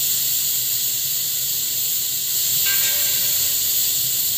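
Stovetop pressure cooker letting off steam at its weight valve: a steady hiss.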